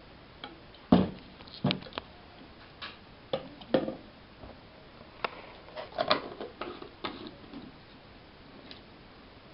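Kitchen handling knocks and clinks: a stainless steel pot set down on a table with a thud about a second in, and a few lighter clinks. Then a cluster of clicks and scrapes about six seconds in as a plastic screw lid is turned onto a glass jar.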